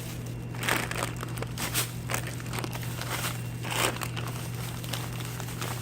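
Irregular crinkling and rustling of something being handled, over a steady low hum.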